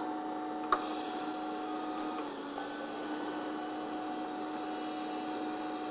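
DC TIG welding arc from a Miller Dynasty 200DX, lift-started with a small click about a second in, then burning with a steady hiss and electrical hum as the root pass is run.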